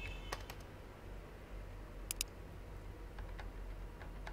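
Scattered clicks of a computer keyboard and mouse, with a sharp pair of clicks about two seconds in, over a low steady hum.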